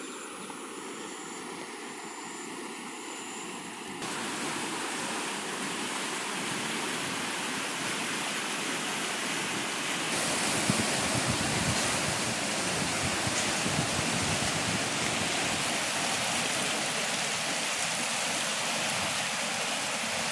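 Floodwater of a swollen river rushing in a steady roar, louder in steps about four and ten seconds in.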